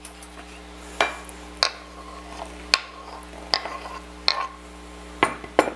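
Chopped garlic being scraped off a bamboo cutting board into a small glass bowl: a metal utensil taps and scrapes on the board's wood and the bowl's glass rim, about seven sharp knocks spread through.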